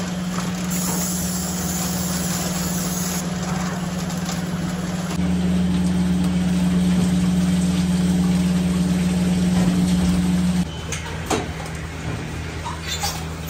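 Steady hum of milking-parlour machinery, running at a constant pitch. It is louder for a stretch in the middle and drops back about ten and a half seconds in, with a few light knocks near the end.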